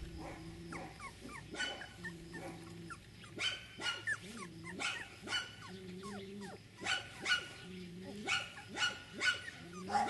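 Young beagle puppies whimpering and squeaking, a run of short, high cries that slide down in pitch, with some lower held grunting sounds between them.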